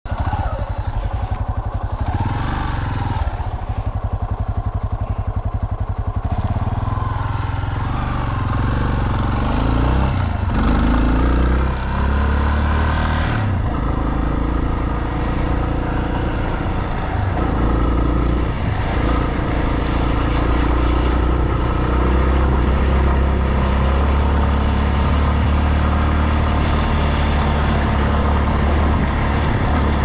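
Yamaha Serow trail bike's single-cylinder four-stroke engine running as the bike is ridden over an unpaved road. Its pitch rises and falls with the throttle through the first dozen seconds, then holds steadier.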